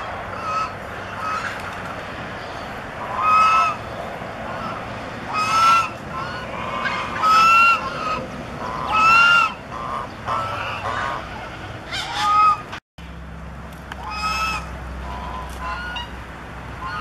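Geese honking repeatedly: short, loud calls come about every two seconds, with fainter calls between them. The sound cuts out briefly about thirteen seconds in.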